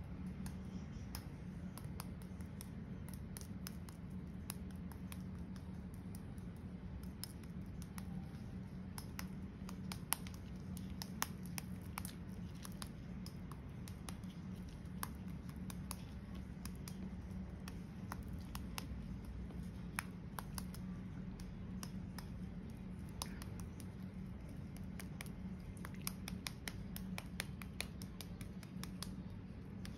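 Paintbrush dabbing and scraping thick baking-soda paint onto a glass bottle, a run of irregular scratchy clicks over a steady low hum.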